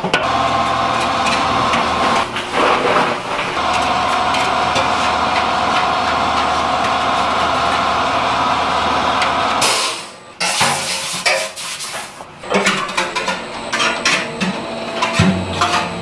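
Commercial noodle-dough machine running with a steady motor hum as it works crumbly dough and rolls it into a sheet. About ten seconds in the hum cuts off after a sudden loud burst, and irregular knocks and clatter follow.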